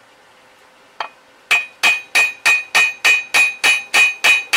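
Hammer blows on a bolt head held against the end of a boat lift's cable-winder spool shaft, driving the shaft into the gearbox. There is one tap about a second in, then a steady run of about three blows a second, each with a short metallic ring.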